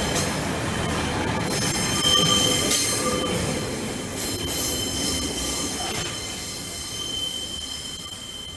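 A Class 144 Pacer four-wheeled diesel railbus running slowly past with a high squeal from its wheels over the rumble of the train. It fades in the last few seconds as it draws away.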